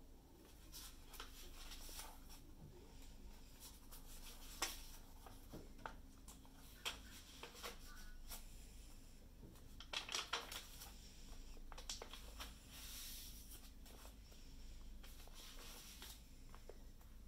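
Sketchbook pages being turned by hand: faint paper rustles and flicks, with a cluster of them about ten seconds in.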